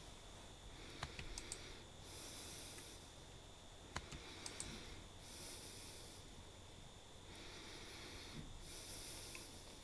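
Faint, slow breathing close to the microphone, in and out every few seconds, with a few sharp key clicks from a compact Bluetooth keyboard about a second in and again about four seconds in.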